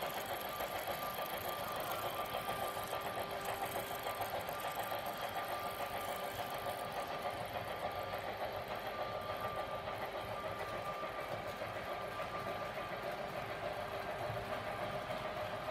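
HO-scale model train, an electric locomotive hauling goods wagons, running steadily along the track: a continuous whirring hum from the small motor and the rolling wheels, with a fine rapid rattle.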